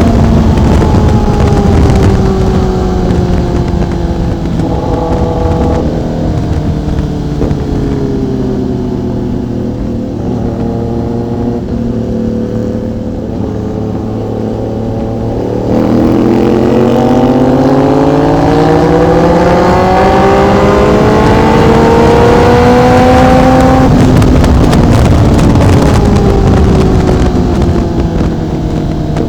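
Sportbike engine and exhaust on the move: the pitch slowly falls as the rider rolls off, with a couple of brief steady spells, then the engine pulls hard and the pitch climbs steadily under acceleration before easing off again near the end.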